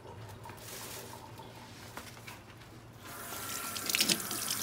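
Kitchen tap water running into a sink and splashing over hands rinsing a piece of raw pork, starting about three seconds in as a loud steady hiss.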